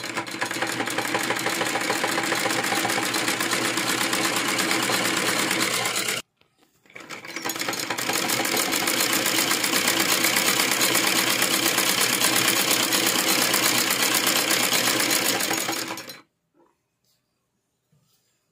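Sewing machine stitching a seam at a steady fast pace in two runs: it stops about six seconds in, starts again a second later, and stops about sixteen seconds in.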